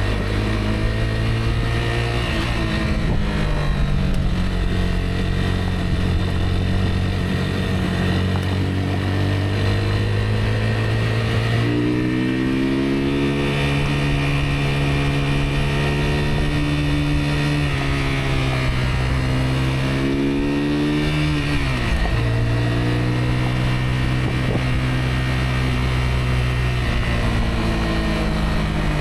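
Rieju Aventura 125's single-cylinder 125 cc engine running while the motorcycle is ridden, its pitch steady for a while, climbing as it is throttled up about twelve seconds in, dropping sharply shortly before the twenty-two-second mark, then holding steady again.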